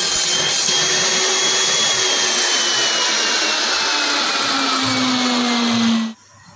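Table saw running, a steady loud whine that slowly drops in pitch, then cuts off abruptly about six seconds in.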